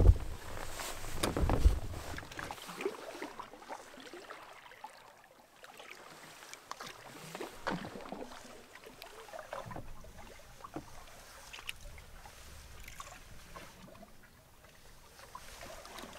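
Boarding a loaded canoe at the shoreline: a few loud knocks and thumps against the hull in the first couple of seconds. Then a paddle dips into calm water at a slow, irregular stroke rhythm, with faint trickling and splashing.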